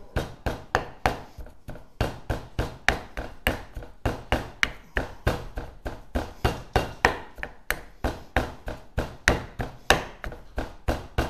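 Wooden pestle pounding salt cod in a marble mortar: a steady run of knocks, about three to four a second, breaking the cod into fine threads.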